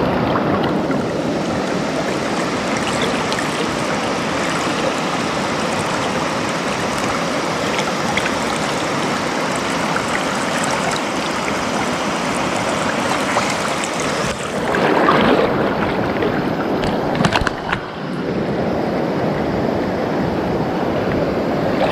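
Fast, shallow river current rushing steadily. The rushing swells louder for a moment about two-thirds of the way through, and a few brief clicks follow.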